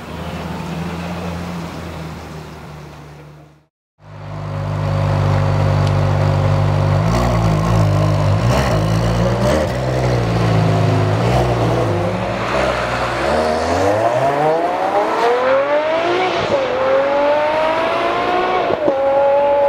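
Ferrari 599 GTO's 6.0-litre V12 running at a steady note, then blipped a few times, then accelerating hard with its pitch rising and dropping sharply twice as it shifts up. The sound cuts out for a moment about 4 s in.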